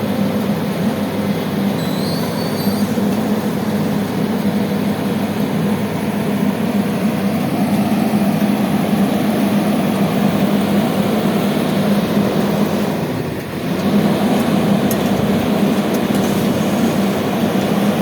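Heavy road-building machinery running steadily with a deep, even drone, briefly dropping in loudness about 13 seconds in.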